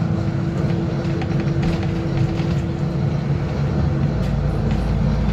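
Alexander Dennis Enviro 400 double-decker bus's diesel engine and transmission running as the bus drives along, heard from the upper deck: a steady whine over the first three seconds, then a deeper low drone coming in about four seconds in. Music plays alongside.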